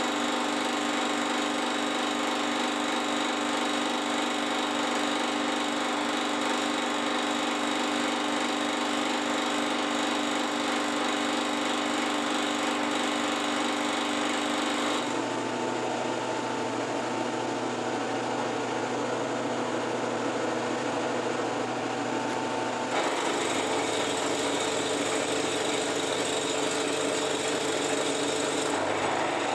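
Benchtop milling machine running, its end mill taking a facing cut across the end of a metal part clamped in a vise. It is a steady machine hum of motor and spindle with cutting noise on top. The sound changes abruptly about halfway through and again a few seconds later.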